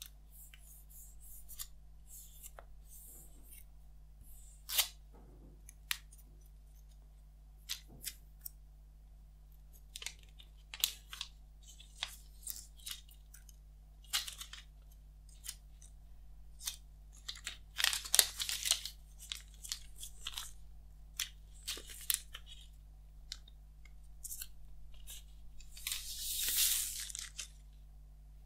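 Clear plastic shrink-wrap on an iPhone 11 Pro Max box being torn open and peeled off. It goes in scattered crinkles, small rips and clicks, with a longer, louder crinkling rustle near the end as the wrap comes away.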